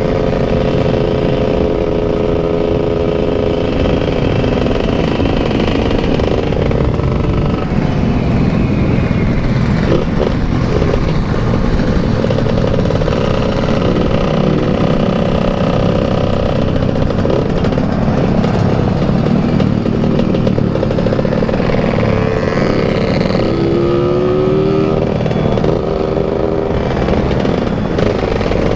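Motorcycle engine running under way, its pitch holding steady and then shifting as the throttle changes, over a heavy low rumble of wind on the microphone.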